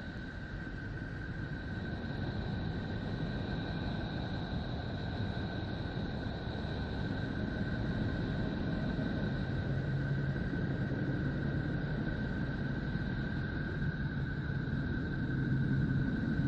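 Planetary 'space sound' drone: a steady low rumble with two thin, unchanging high tones over it, growing slowly louder.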